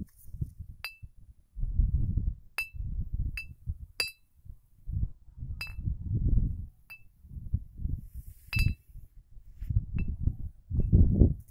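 Brown glass beer bottle hanging on a string, swung by the wind through a cardboard vane, clinking as a small hanging striker knocks against it: about nine irregular, short ringing clinks a second or so apart. Wind gusts rumble on the microphone between and under the clinks.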